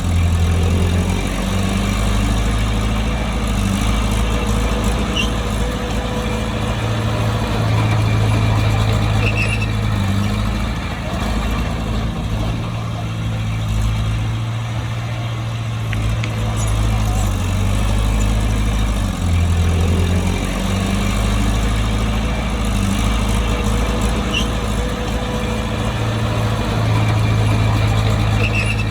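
Bulldozer's diesel engine running under load, its note stepping up and down several times as it works, with a few faint short squeaks.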